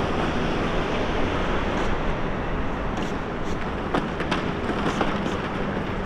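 Steady city traffic noise, a dense rumble of passing vehicles, with a few sharp clicks in the second half.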